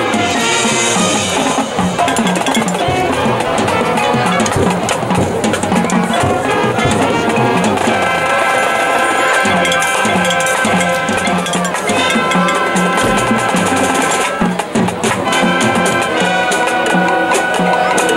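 High school marching band playing its field show: a percussion-heavy passage with steady drum strokes, and held chords coming in over the drums about eight seconds in.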